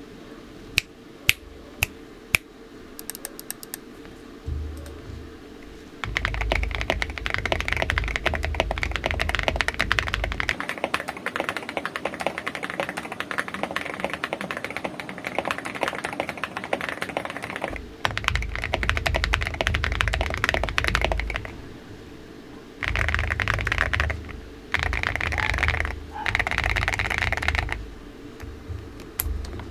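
Typing on a Weikav WK75 mechanical keyboard with lubed AKKO V3 Cream Yellow Pro linear switches, foam-dampened case and MOA-profile keycaps. A few single key presses come first, then fast runs of typing in several bursts with short pauses between them.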